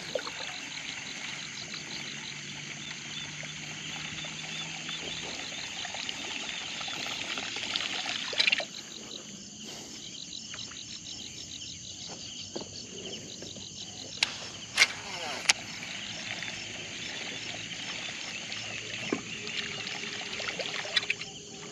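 Outdoor ambience of insects chirping in a steady, fast-pulsing chorus, with water trickling and lapping around a small boat. A swell of water noise stops sharply about eight seconds in, and a few sharp clicks come near the middle.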